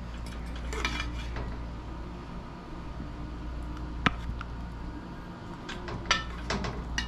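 Metal serving spoon clinking and scraping against a pot and a plate as stewed chicken is dished out, a few separate clinks over a low steady hum.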